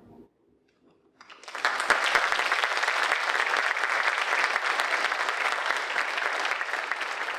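Audience applauding, breaking out about a second in after a brief near-silence and holding steady as a dense patter of many hands clapping.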